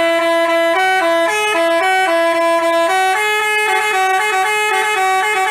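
Basuri telolet horn, a multi-tone bus horn, playing a loud melody of short stepping notes in two-note chords. The tune moves in longer notes at first, then speeds up into quicker notes after about three seconds.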